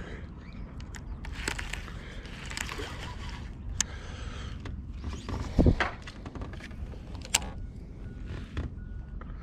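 Handling noise from a fishing rod and reel: scattered clicks and rustling over a steady low rumble, with one loud thump about five and a half seconds in.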